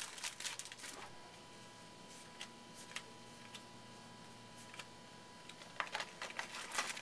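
Baseball cards being handled and sorted by hand, giving soft clicks and rustles: a flurry in the first second, a few scattered ticks, then another flurry near the end. A faint steady hum sits underneath.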